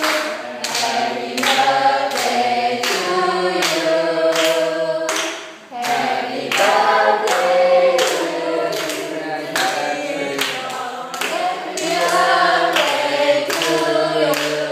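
A group of people singing a birthday song together, clapping along about twice a second, with a short break between lines about five and a half seconds in.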